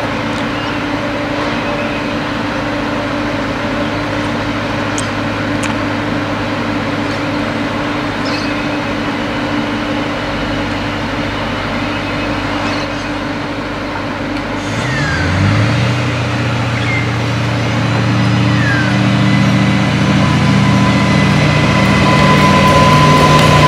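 Adelaide Metro 3100 class diesel railcar approaching along the platform and running past, its diesel engine note steady at first. About two thirds of the way in, a stronger, deeper engine note comes in and the sound keeps growing louder as the railcar draws alongside, with a thin high whine near the end.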